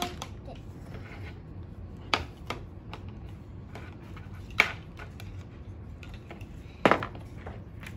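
Plastic construction-toy pieces clicking and knocking against each other and the table as they are handled and fitted, with a few sharper knocks about two, four and a half, and seven seconds in.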